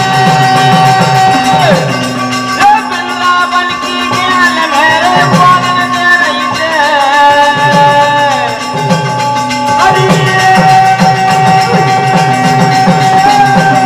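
Live Birha folk music on harmonium and drums, with long held notes and wavering, gliding vocal lines over repeated drum strokes that bend in pitch.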